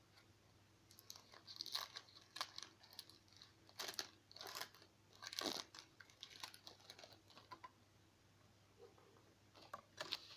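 Baseball card pack wrapper being torn open and crumpled by hand: a run of short crinkling rustles, a brief lull, then a few more crinkles near the end.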